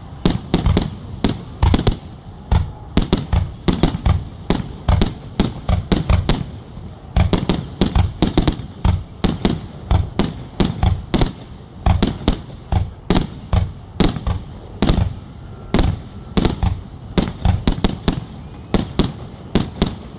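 Aerial fireworks going off in a rapid, continuous volley of sharp bangs, two or three a second, as shells fire one after another and burst overhead.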